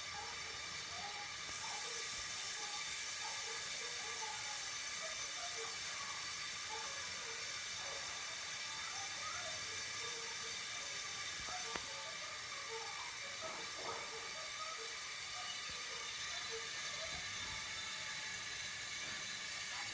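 Milk boiling in a pot: a steady steamy hiss, a little louder after the first second or two, with scattered faint short pops.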